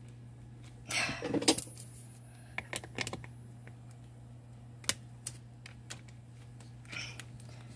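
Small metal clicks and clinks of a battery's bolt-on terminal clamp and its hardware being worked by hand, in scattered bursts: a quick cluster about a second in, the loudest, more a couple of seconds later, and a single sharp click near the middle.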